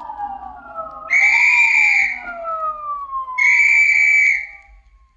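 Sound effect of police sirens winding down, their pitch falling slowly, with two loud, shrill whistle blasts of about a second each, signalling the police arriving outside.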